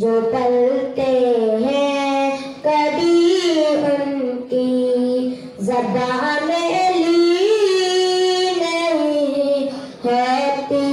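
A boy singing a naat, an Islamic devotional poem, solo and without accompaniment into a handheld microphone. He holds long notes that slide up and down in pitch, with short breaks for breath.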